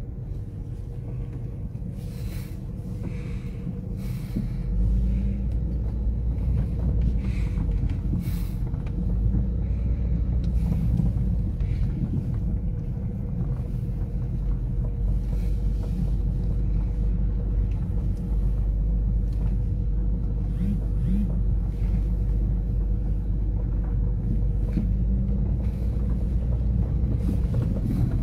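A car driving on a dirt road, heard from inside the cabin: a steady low rumble of engine and tyres that grows louder about five seconds in, with a few scattered knocks.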